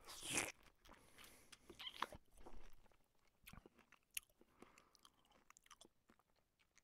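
Near silence, broken by faint, scattered crunching clicks of food being bitten and chewed.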